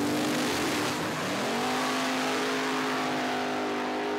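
A drag-racing truck's engine at full throttle down the strip: its pitch dips about a second in, as at a gear change, then holds a steady high note over a loud rush of noise.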